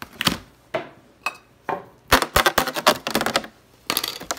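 Clear plastic meat tray handled and set down on a tile countertop: a few separate clicks and knocks, then a dense run of crackling plastic clicks from about two seconds in.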